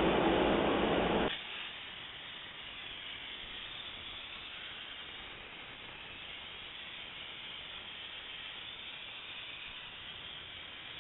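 A loud rushing noise cuts off abruptly about a second in, giving way to the steady hiss of an Optima DMF steam cleaner's wand spraying steam onto car paintwork.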